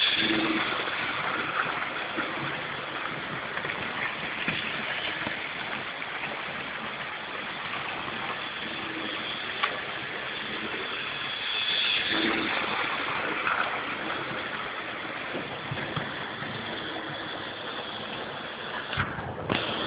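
Model train running on the layout's track: a steady rattling rumble of wheels and motor, with a few sharp clicks.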